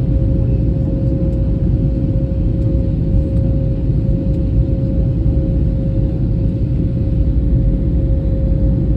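Airliner cabin noise: a steady, loud low rumble of the engines and airflow heard from inside the passenger cabin, with a steady mid-pitched hum running through it.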